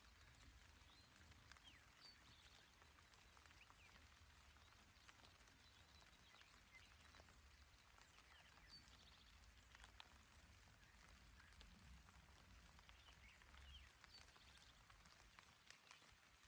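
Quiet, gentle rain falling on a grassy mountain meadow: a soft steady hiss with scattered drop ticks, and faint short chirps from small animals now and then.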